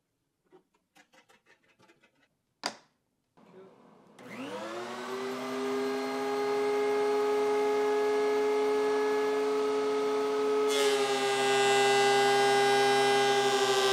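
A few light clicks and one sharp knock. Then, about three and a half seconds in, a machine motor starts and spins up, rising in pitch, and settles into a steady hum with several pitched tones. About eleven seconds in, a second, hissier machine sound joins and the whole gets louder: the DeWalt thickness planer and its dust extraction running up, with no board in the cutter yet.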